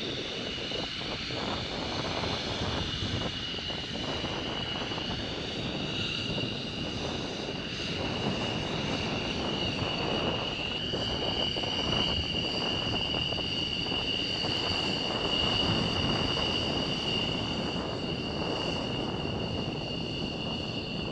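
F-15 Eagle's twin turbofan jet engines running at low power while the fighter taxis, a steady rush of jet noise with a high, constant whine.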